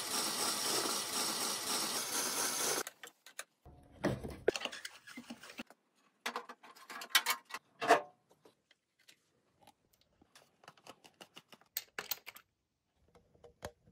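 A steady mechanical running noise cuts off abruptly about three seconds in. It is followed by scattered light clicks, taps and a few short metallic knocks as small parts are handled.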